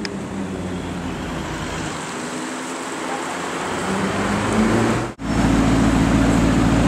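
Maserati GranTurismo S's 4.7-litre V8 running at low revs as it creeps in traffic. After a brief dropout about five seconds in, it idles steadily and louder, heard close to the exhaust tips.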